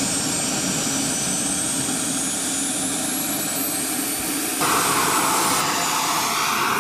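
Small turbine engine of a radio-controlled Hawk model jet running on the ground: a high whine that slowly rises in pitch over a steady rush, turning abruptly louder a little over four seconds in.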